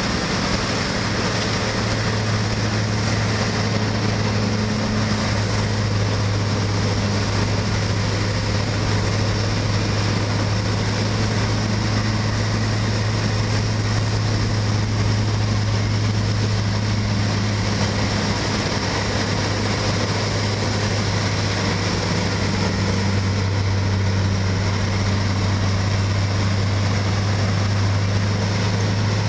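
Asphalt milling machine at work: a steady, heavy diesel drone with a low hum, under the even grinding of the cutting drum chewing up the road surface.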